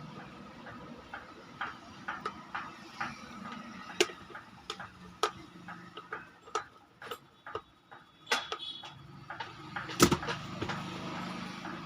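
Irregular clicks and taps of small blender parts and hand tools being handled and fitted during reassembly, with two sharper knocks about four and ten seconds in.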